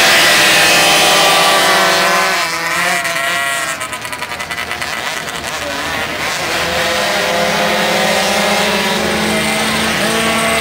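Several pocketbike two-stroke engines buzzing at high revs, their pitches rising and falling as the riders open and close the throttle through the corners. The sound drops away a few seconds in as the pack pulls off, then grows louder again as they come back round.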